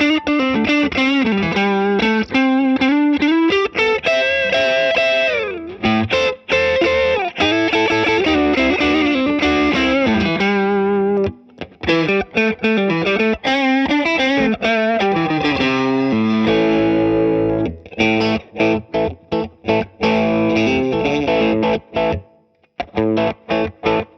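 Electric guitar played through the Boss IR-2's Boss Crunch amp model with the gain turned up, giving an overdriven, crunchy tone. Sustained notes and chords with a few gliding bends and slides, a short break about eleven seconds in, and clipped staccato chords toward the end.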